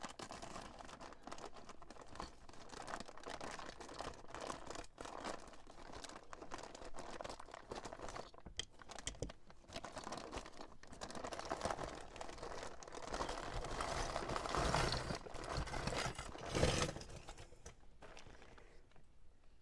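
Packaging being cut and pulled open by hand: continuous crinkling, rustling and tearing with small crackles, loudest a few seconds before the end, then dying away.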